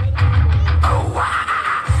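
Loud rock music with a heavy, pounding bass line. About a second in the bass drops out under a sweeping guitar-like glide, then slams back in near the end.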